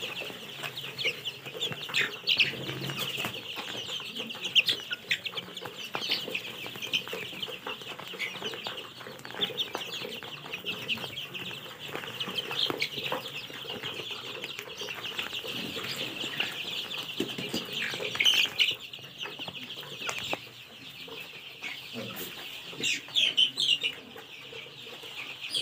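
A brood of young chicks peeping continuously, many short high calls overlapping, with a few louder bursts of peeping, over the light patter of feed grain poured by hand into a plastic feeder.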